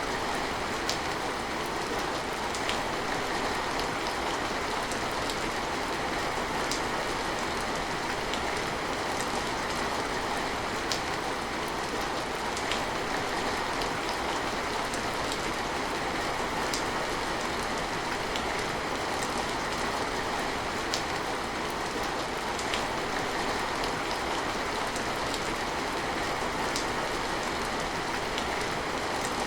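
Steady rain falling, with scattered sharp drops hitting a surface; no thunder.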